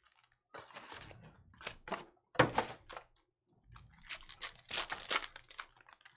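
Foil wrapper of a Panini Select football card pack being crinkled and torn open by hand: a string of short, irregular crackles and rips, the loudest about two and a half seconds in and a dense run of them near the end.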